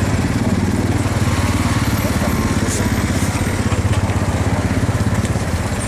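An engine running steadily, a low rumble with a fast, even pulse.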